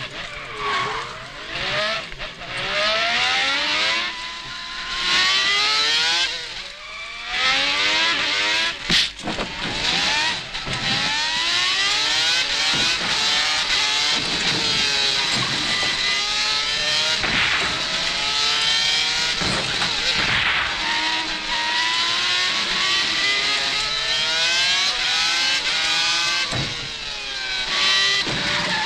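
Racing-car engine sound effects: more than one engine revving up through the gears again and again, each note climbing, dropping back and climbing once more. A sharp crack sounds about nine seconds in.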